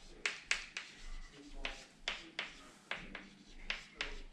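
Chalk writing on a chalkboard: a quick, uneven run of sharp taps and short scratching strokes, about two to three a second.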